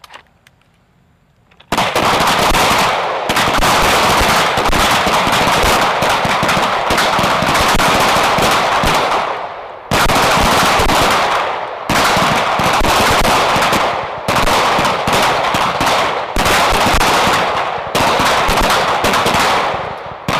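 Many pistols firing together on a firing line, the shots overlapping into a dense crackle. The firing starts about two seconds in and runs almost without a break, then from about ten seconds in comes in stretches of a couple of seconds with brief lulls between them.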